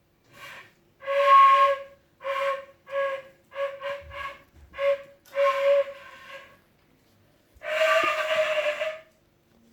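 A run of breathy, high squeaks at a steady pitch: about ten short ones in quick, uneven succession, then one longer squeak lasting over a second near the end.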